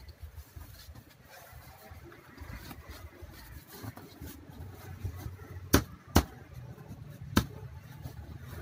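Rustling and rubbing of a quilted leatherette seat cover being worked over a car seat by hand, over a low steady hum. Three sharp knocks come in the second half: two close together, then a third about a second later.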